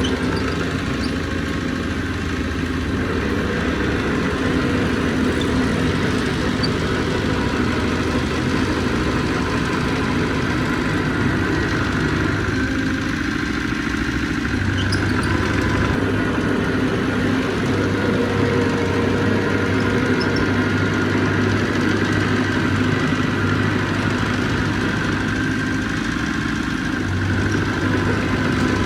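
Heavy diesel engine of earthmoving equipment running steadily, its pitch shifting slightly now and then.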